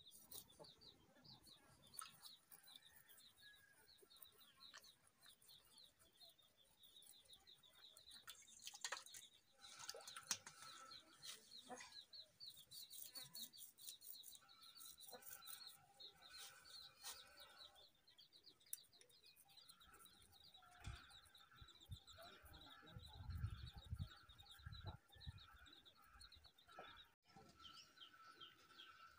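Faint chirping of small birds, a rapid high twitter that keeps going, over a quiet room. Now and then come soft scrapes and clicks as fish are scaled and cut on a curved boti blade.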